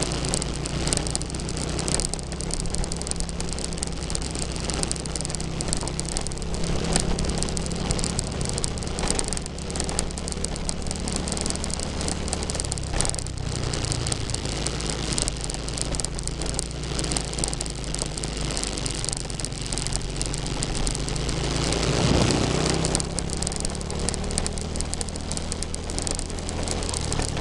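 Motorcycle engine running steadily at cruising speed, with wind buffeting the microphone and tyre rumble on a concrete road. The engine note shifts twice, about halfway through and again near the end.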